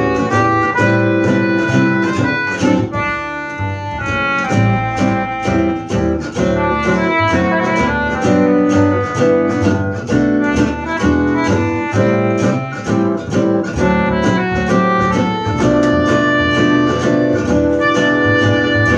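Acoustic swing played live by two acoustic guitars, an English concertina and an upright bass: a steady strummed guitar rhythm with walking bass under held concertina notes and guitar lines.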